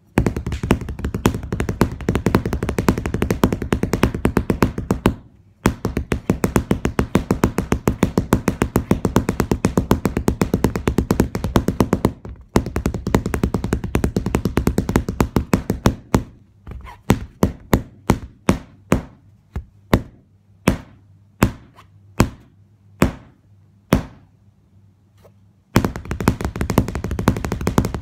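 A stick tapping in fast, even runs of sharp taps, with two short breaks. Later these thin out to single knocks spaced up to a second apart, go quiet briefly, and then a fast run starts again near the end.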